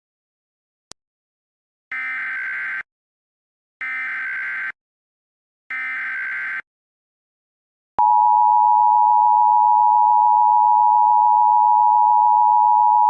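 Emergency Alert System alert tones. First come three identical buzzing bursts of SAME header data, each just under a second long with about a second between them. About a second after the last burst, the louder, steady two-tone attention signal starts and holds.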